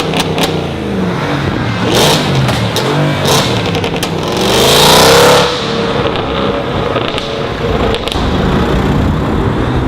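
Audi S5's 4.2-litre V8 with a decatted exhaust, revving. Sharp crackles come right at the start and again about two and three seconds in, then a loud rising rev about five seconds in before the engine note drops back.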